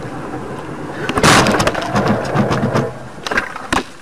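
A vehicle collision: a sudden loud crash about a second in, followed by a couple of seconds of crunching and scraping, then a few sharp clicks near the end.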